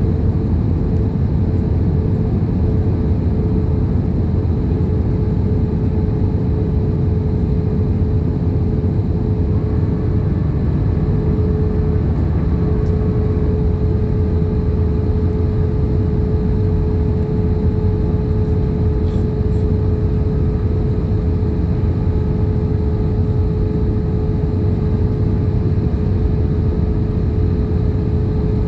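Airbus A320ceo cabin noise: a steady deep rumble of the engines and rushing air, with a constant mid-pitched hum over it.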